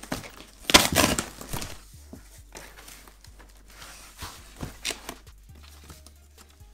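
Cardboard shipping box torn open by hand: a loud ripping tear about a second in, then scattered crinkling and tapping of cardboard.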